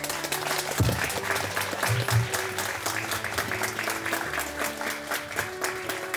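A crowd of guests applauding with dense, rapid clapping that thins out near the end, with background music underneath.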